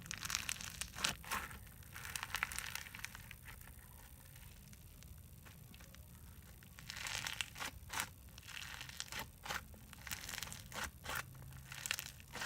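Floam, slime packed with tiny foam beads, squeezed and kneaded by hand, giving a crunchy crackling of many small pops. Crackling comes in bursts in the first few seconds and again through the second half, with a quieter lull in the middle.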